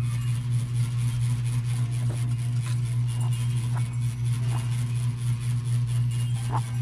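Steady low electric hum of a spinning ceiling fan's motor, with a few light clicks and taps as the pieces of a white storage box are handled.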